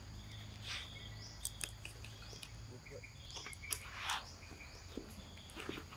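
Insects chirring steadily, with short rising chirps repeating every second or so. A few sharp clicks and brief noisy scuffs come through over it.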